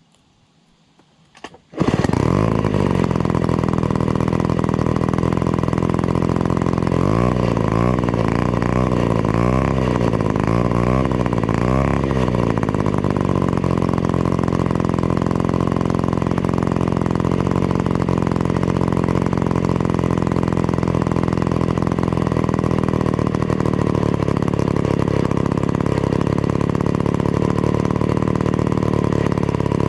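Vintage Be-Bo 125cc two-stroke chainsaw engine catching about two seconds in and running loud. Its throttle is blipped up and down about five times between roughly seven and twelve seconds in, then it runs on at a steady speed.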